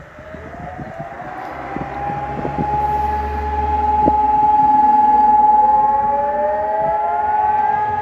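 Hörmann ECN 600 electronic civil-defence sirens starting a test run, heard from a distance: one siren's tone glides up and holds steady from about two seconds in, and a second siren's tone rises in over the last few seconds, overlapping the first.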